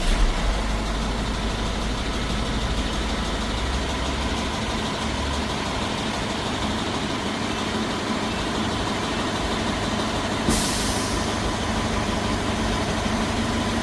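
Tata Daewoo The Cen truck's diesel engine idling steadily just after a remote start, with a short hiss of air about ten seconds in.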